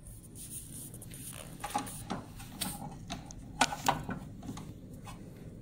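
Screwdriver tightening a screw into an analyzer's sheet-metal frame: irregular small metallic clicks and scrapes, the sharpest a little past halfway.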